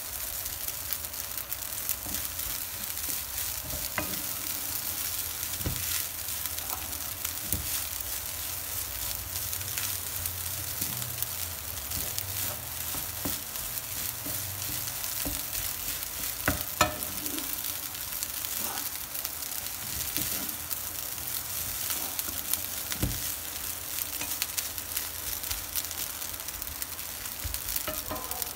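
Rice and shrimp sizzling in a nonstick frying pan as a wooden spatula stirs and scrapes through them, with scattered clicks and taps of the spatula against the pan and one sharper knock partway through.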